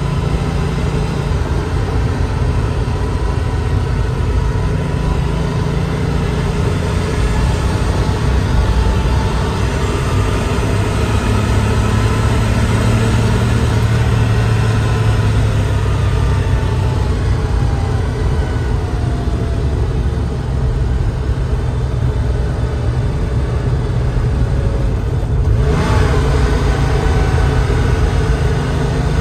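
1988 Porsche 911 Turbo's turbocharged air-cooled flat-six under way, heard from inside the cabin with road noise. The engine note rises and falls with speed. It sags for several seconds, then after a brief break near the end it climbs again as the car accelerates.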